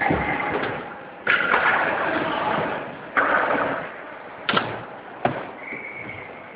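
Skateboard riding on ramps: wheels rolling with the board slamming and clacking down several times, two sharp clacks a little after the middle. A short high steady tone sounds near the end.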